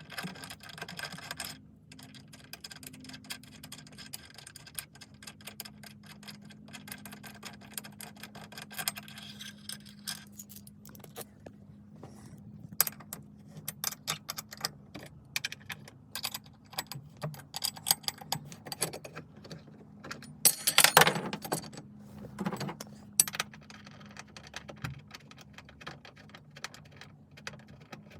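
Metal hand tools and small metal parts clicking and clinking in irregular bursts during work on a car's shifter installation, with one louder clatter about twenty seconds in.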